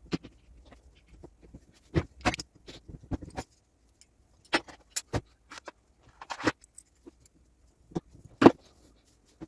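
Irregular metallic clinks and knocks of parts and tools being handled as a Gaggia Classic espresso machine is put back together, the loudest knock near the end.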